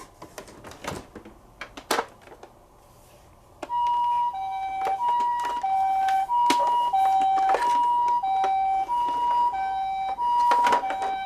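Toy minicar ambulance's electronic two-tone 'pee-po' siren, switching on about four seconds in and alternating high and low about every two-thirds of a second. Before and over it, scattered sharp clicks and knocks of the toy cars being handled.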